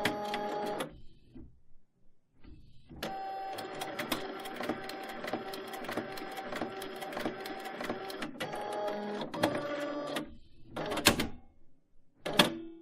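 Rapid mechanical clicking and whirring over a steady tone, coming in stretches of a few seconds each, then two sharp hits near the end.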